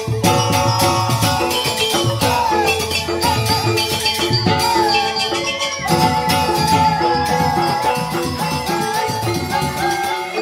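Joged bumbung gamelan music: bamboo xylophones playing a fast interlocking pattern, with kendang drum strokes, ceng-ceng cymbal clashes and a wavering high melody line above.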